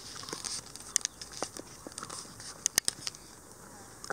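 Shiba Inu gnawing on a sika deer bone: irregular sharp clicks and cracks of teeth biting and scraping on the bone, with a few louder cracks a little before three seconds in.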